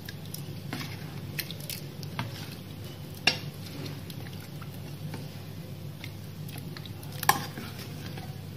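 A steel ladle stirring thin rava dosa batter, mixed to buttermilk consistency, in a steel pot: a soft wet squishing with scattered light metal clinks, and two sharper clinks about three seconds in and near the end.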